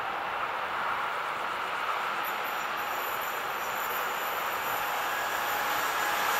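Electric freight locomotive, a Siemens ES 64 F4 (class 189), hauling an intermodal train as it approaches. The rumble of wheels on rail grows steadily louder, and a thin high whine joins about two seconds in.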